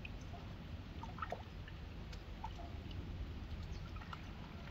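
Light splashing and trickling of water as a live duckling used as bait on a fishing rod is twitched across the surface of a creek to lure snakehead.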